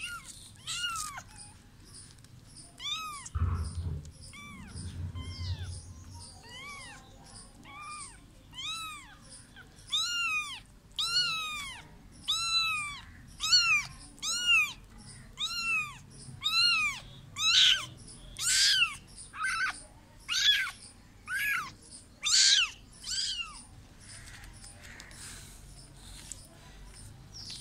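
Kitten mewing over and over in short, high-pitched calls that rise and fall, about one a second. The calls grow louder partway through and stop a few seconds before the end.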